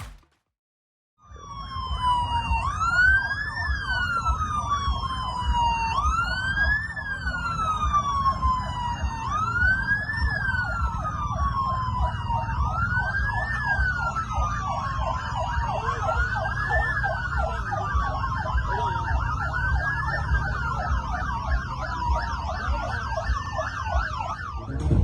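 A siren wailing, starting about a second in, its pitch sweeping up and down in slow cycles about every three seconds, over a steady low background rumble.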